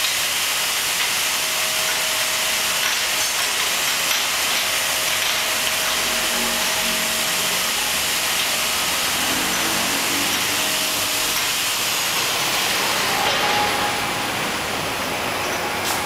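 Yeou Shing YS-Rin12 automatic rotary bottle rinser running: a steady, loud hiss from its rinsing jets over the machine's running, with a steady tone that fades out about eleven seconds in.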